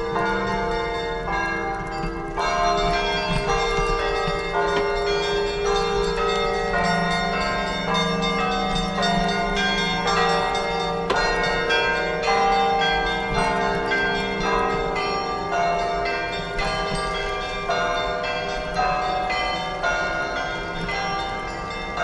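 Russian Orthodox church bells ringing a continuous peal: several bells of different pitches struck in quick succession, their tones ringing on and overlapping.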